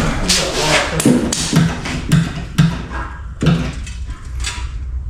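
Hand-tool work on a car's parts: irregular knocks and scraping, several a second at first, then sparser.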